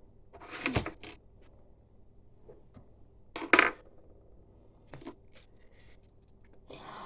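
Handling of a CO2 blowback airgun and its parts: a few separate clicks and knocks, the loudest a short clink about three and a half seconds in.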